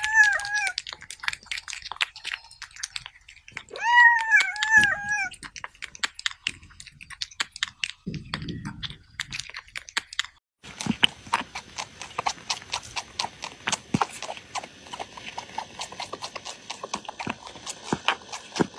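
A cat meows twice, about four seconds apart, among quick wet mouth clicks and smacking of a cat eating. About ten seconds in this gives way to a denser run of rapid clicks and slurping, a cat sucking at a milk bottle.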